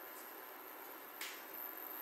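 Faint steady hiss with one short, soft brushing scrape about a second in, as a wooden spoon tips chili powder into a small glass bowl.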